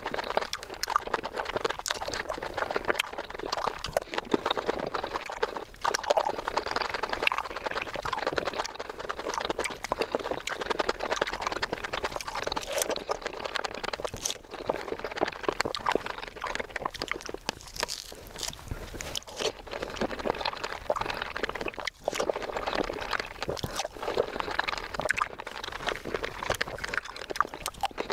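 Close-miked wet chewing and crunching of fresh fruit, including a strawberry bitten and chewed, with dense small clicks and juicy mouth sounds throughout.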